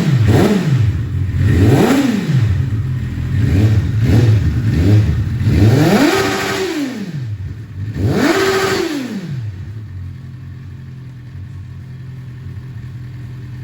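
Suzuki Bandit 650's fuel-injected inline-four engine, breathing through an aftermarket long muffler, is blipped on the throttle about six times, the last two revs the highest. It then settles back to a steady idle for the last few seconds.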